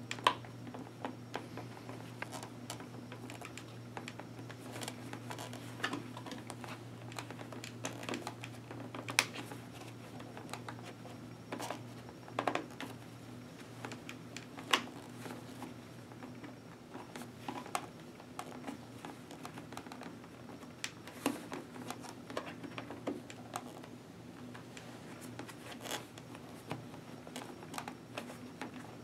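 Hands handling a motorcycle helmet's padded neck roll and lining as it is fitted back in: scattered light clicks, scratches and fabric rustling, with a few sharper clicks, over a steady low hum.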